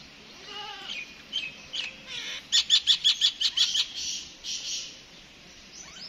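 Common myna calling: a few varied whistled notes, then about halfway through a fast, loud run of about nine sharp repeated notes, several a second, and a couple more notes after it.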